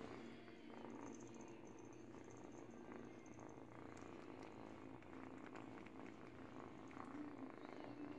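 Eight-week-old kitten purring steadily while teething on a blanket, with a few small clicks.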